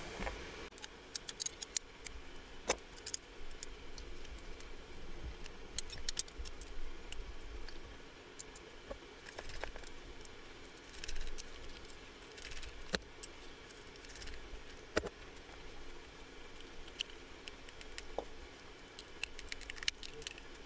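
Faint, scattered clicks and light taps of a partly disassembled Geek Vape AEGIS box mod and its small metal and plastic parts being handled on a tabletop.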